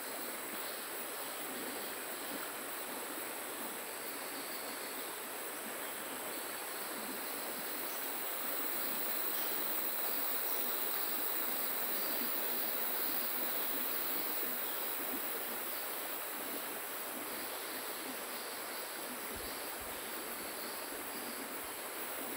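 River water flowing steadily, a constant rushing hiss that swells a little in the middle.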